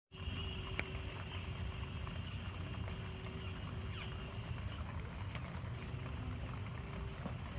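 Steady outdoor background of insects chirping in a high, pulsing drone over a low rumble, with a few faint ticks.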